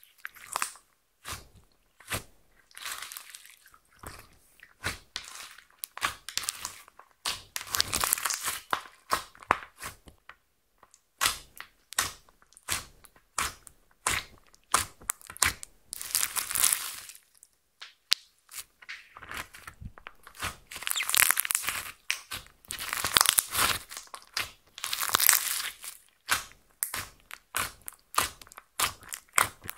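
Clear slime mixed with eyeshadow and glitter being poked, pressed and squeezed by hand: a quick run of wet clicks and pops, with several longer crackling spells.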